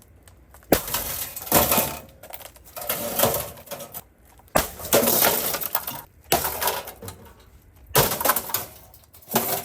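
An Asus Republic of Gamers computer case being smashed: about six heavy blows a second or two apart, each followed by crunching and the rattle of breaking panels and parts.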